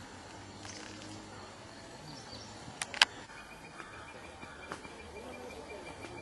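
Outdoor ambience with faint bird chirps and insect-like sounds. Two sharp clicks come close together about three seconds in, and a thin, steady high tone sets in just after them.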